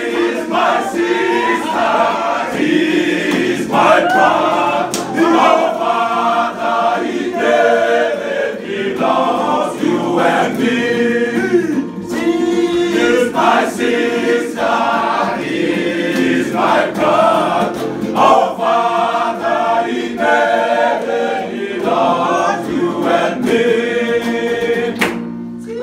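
A group of men singing together in chorus to a strummed acoustic guitar; the singing stops just before the end.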